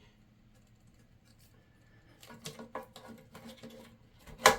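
Plastic hose end piece and clip of a toilet-tank cleaner being handled and pushed into place: a scatter of small plastic clicks and rustling about halfway through, then one sharp click near the end.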